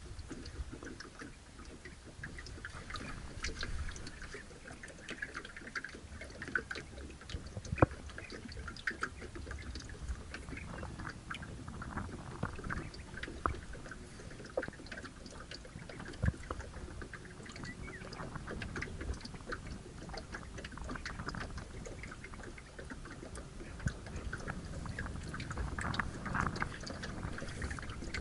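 Small waves lapping and trickling against the hull of a small rowboat. Many faint ticks and clicks run through it, with a sharper knock about 8 seconds in and another about 16 seconds in.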